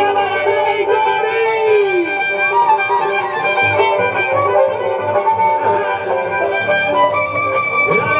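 Violin-led festival folk music, the fiddle carrying a melody over a steady low beat.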